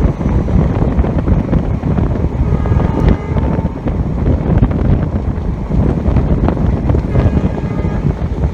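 Wind buffeting the microphone over the rumble of an Indian Railways express train running at speed. The horn of its WDP-4D diesel locomotive sounds faintly under the wind, about three seconds in and again near the end.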